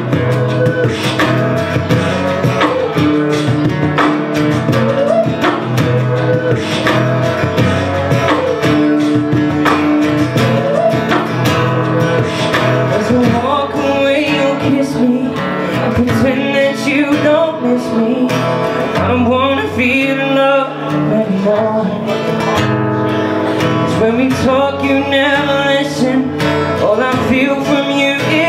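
Music: an acoustic guitar strummed in a steady rhythm under a melody line that wavers in pitch.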